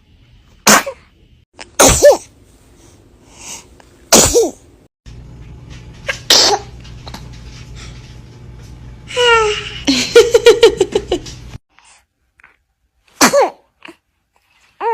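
A string of small, sharp baby sneezes, about five in all, each one short and sudden. About nine seconds in, between two of them, there is a brief run of short pitched voice sounds.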